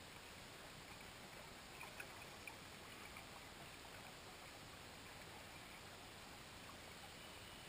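Faint, steady underwater ambience: an even hiss, with a few faint short ticks about two seconds in.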